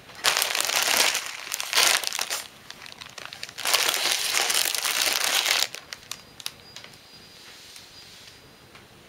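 Plastic wrapping of bagged instant ramen packets crinkling as they are handled, in two bursts of about two seconds each, followed by a few light ticks.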